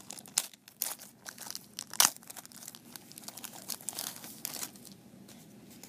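Shiny foil wrapper of a 1990 Score football card pack crinkling and tearing as it is pulled open by hand. There is one sharp crackle about two seconds in, and the rustling thins out near the end.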